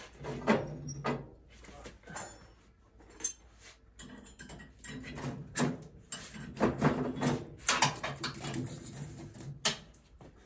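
Clanks and knocks from an old cast-iron Dover wood stove as its firebox door is opened and the fire is tended, with repeated metal-on-metal and wood-on-metal strikes.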